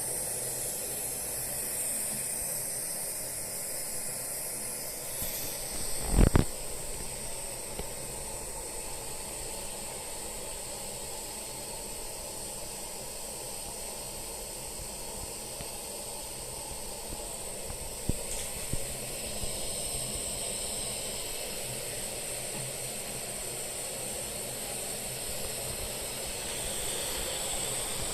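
Optimus 111 kerosene pressure stove burner running with a steady hiss and low rumble, burning at a moderate setting under a kettle of water. A single sharp knock comes about six seconds in, with a few faint clicks later.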